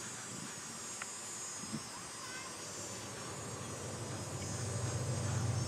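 Steady, high-pitched chirring of an outdoor insect chorus. A low hum swells in under it near the end.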